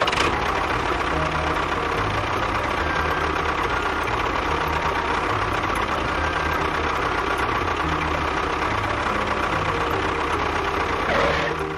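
A small motor running steadily with a rough, noisy drone. It cuts in suddenly and winds down near the end.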